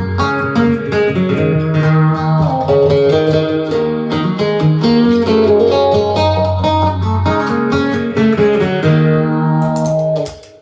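A guitar playing a run of plucked notes over low held notes. The playing stops just before the end.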